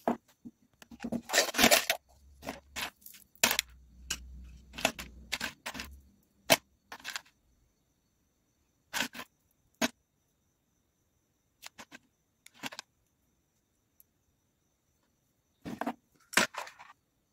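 Small screws and metal parts clinking and rattling as fingers rummage through a tray of them, in short spells several seconds apart. The first few seconds hold denser clicks and scrapes from parts being handled and fitted together.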